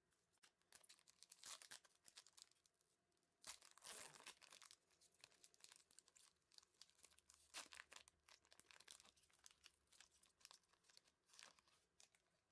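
Plastic trading-card pack wrapper being crinkled and torn open: a quiet run of crackles and crinkles, with a longer rip about three and a half seconds in.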